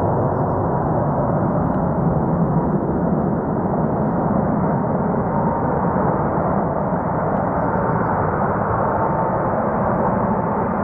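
Airbus A380's four jet engines running with a steady roar on low final approach, with a faint steady whine in it.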